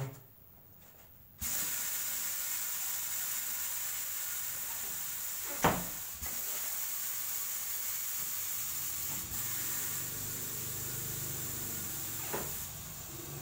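Compressed air hissing from a pneumatic tyre-changing machine. It starts suddenly a second and a half in and runs steadily, with a sharp knock about halfway through.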